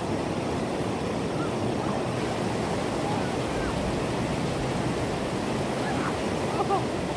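Stream water rushing steadily as it cascades over granite rocks in a small waterfall.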